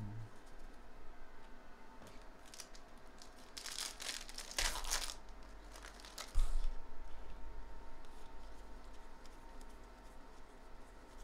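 A foil trading-card pack wrapper being torn open and crinkled, the rustling loudest about four to five seconds in. A dull thump comes a little after six seconds, followed by soft handling of the cards.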